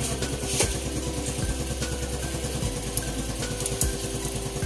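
A small engine idling steadily, with a few light metallic clicks as an 8 mm box wrench works on a tappet cap.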